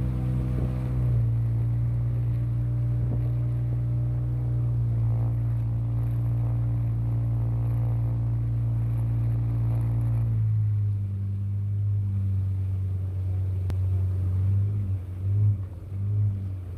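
Boat's outboard motor running steadily, its note dropping as the throttle eases off about ten seconds in.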